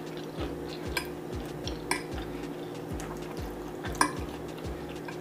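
Cutlery clinking and scraping against a plate a few times as food is picked up, the sharpest clink about four seconds in, over a steady low hum.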